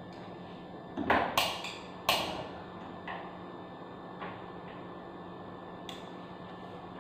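A metal utensil knocking against a large metal cooking pot: a cluster of sharp clacks about a second in, another at two seconds, then a few lighter taps, over a steady low hum.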